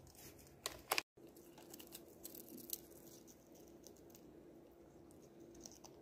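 Two sharp clicks about a second in, then faint scattered clicks and crunches of an African grey parrot's beak nibbling a puffed corn snack held in its foot, over a low steady hum.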